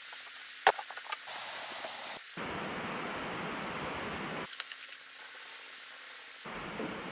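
Steady background hiss of workshop room noise, with a sharp click and a few lighter knocks about a second in. The hiss changes abruptly in level and tone three times, at cuts between clips.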